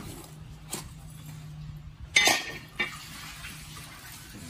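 A cleaver knocking on a wooden chopping board while a bitter melon is split lengthwise, with a louder metallic clatter a little over two seconds in and another knock just after. A low steady hum runs underneath.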